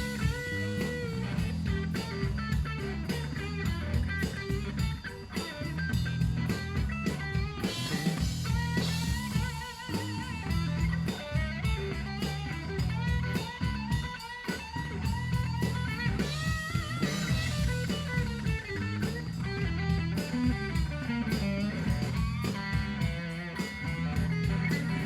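Live blues guitar solo with bending, wavering notes, over the band's steady bass and drum backing.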